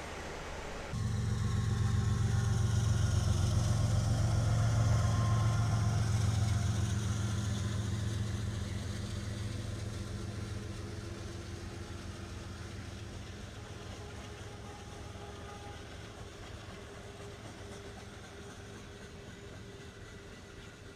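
Diesel locomotive engine running with a deep, steady drone. It comes in abruptly about a second in, is loudest a few seconds later, then fades steadily.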